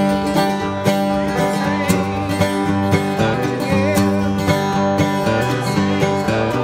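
A bluegrass band playing, with acoustic guitar, mandolin, upright bass and banjo picking a steady rhythm.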